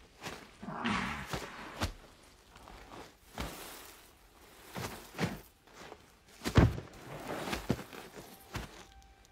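A lioness grappling with a gemsbok in loose sand: irregular thuds, scuffs and scrapes of bodies and kicking hooves on the ground, the heaviest thud about two-thirds of the way through, with a short throaty grunt about a second in.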